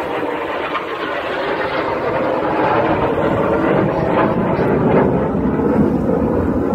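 Jet engines of BAE Hawk display jets flying past in formation: a steady roar that grows gradually louder as they come closer.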